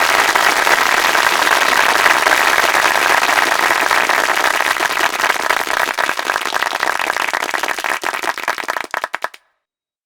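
Large audience applauding: dense clapping that thins out about six seconds in to scattered individual claps, then stops suddenly near the end.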